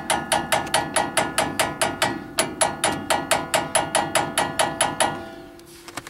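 Hammer tapping metal on metal in a quick, even rhythm, about five ringing strikes a second, driving the caliper pin out of a 1977 Ford F250's front disc brake. The tapping pauses briefly a little after two seconds in and stops about five seconds in.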